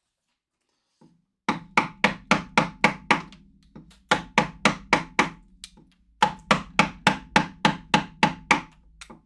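A wood chisel being struck in quick, regular blows, about four a second, cutting into a block of wood. Two runs of blows start about a second and a half in and about six seconds in, with a short pause between.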